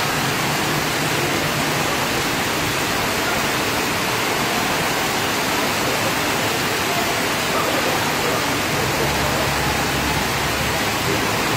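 Heavy rain pouring down onto a flooded street, a steady rush of noise with no breaks.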